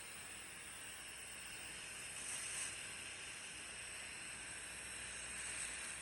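HM DBF-1000 continuous band sealer with air blowing, running with a steady hiss that swells briefly about two and a half seconds in.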